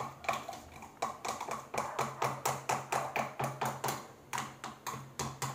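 A spoon clicking and tapping against the side of a bowl while stirring a slime mixture of glue and detergent, about four quick taps a second.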